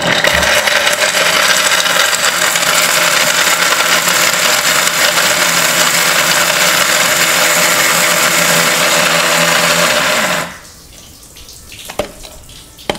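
Atomberg mixer grinder, with its brushless DC motor, grinding coconut in coarse mode: the motor runs steadily and loudly for about ten seconds, then switches off. A single click follows a second or so later.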